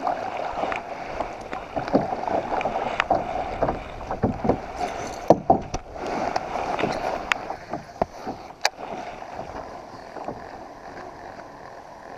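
Canoe being paddled with a wooden paddle: water swishing and splashing around the blade with each stroke, with a few sharp knocks of the paddle against the canoe. The paddling eases off in the last few seconds.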